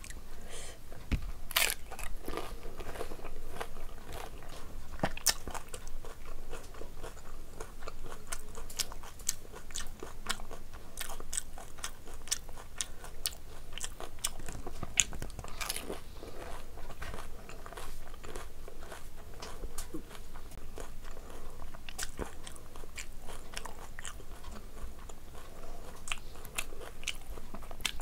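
Pani puri being eaten: crisp, hollow, water-filled puri shells crunching and being chewed, with many sharp crunches throughout.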